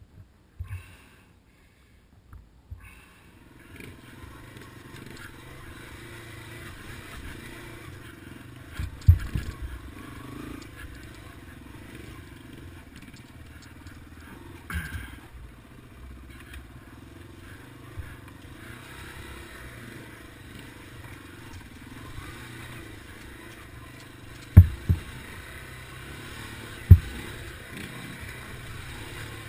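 Yamaha TW200's single-cylinder four-stroke engine running steadily as the bike rides over slickrock, starting a few seconds in. Four sharp thumps come through as the bike jolts over rock ledges.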